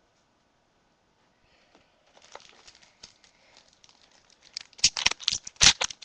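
A baseball card pack's wrapper being crinkled and torn open. It is faint at first, then ends in a quick run of loud crinkling rips over the last second or so.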